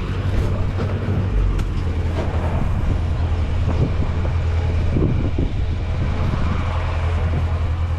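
Farm tractor engine running steadily under load, a deep even hum with scattered knocks from the hay equipment.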